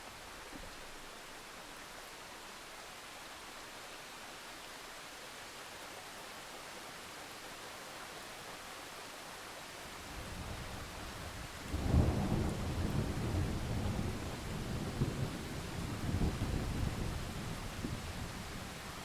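Steady rain hiss with a roll of thunder: a low rumble starts about ten seconds in, a sharp loud clap follows a couple of seconds later, and the rumbling carries on for several seconds before easing off.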